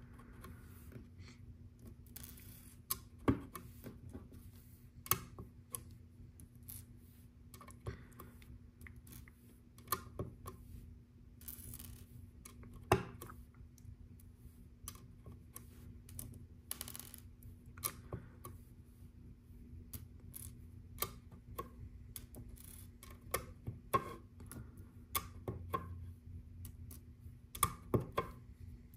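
Small round plastic LEGO tiles clicking as they are pressed onto a baseplate's studs one by one and picked out of a loose pile: irregular light clicks and taps over a faint steady hum.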